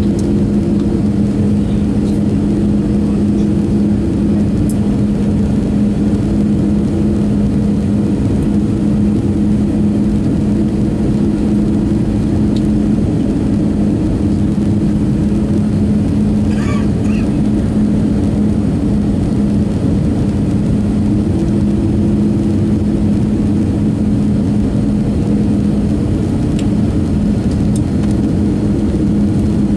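Steady cabin drone of an Airbus A319 on its landing approach, heard from a window seat over the wing: jet engine and airflow noise with a constant low hum.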